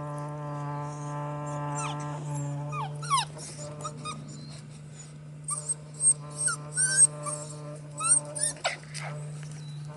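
Border collie puppies, about seven weeks old, yipping and squealing in play: a few calls about three seconds in, then a run of sharp yips from about five and a half to eight and a half seconds. A steady low hum runs underneath.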